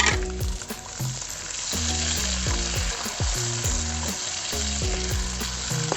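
Diced cherry tomatoes and yellow bell pepper frying in hot oil in a pan: a sudden burst of sizzling at the start, then a steady sizzle that grows louder after a couple of seconds.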